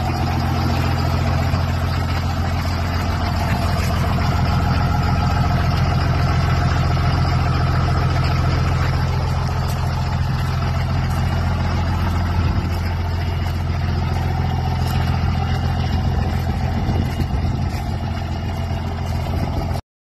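Diesel engine of a white dually pickup idling steadily with a deep, even drone, not revved; the sound cuts off suddenly near the end.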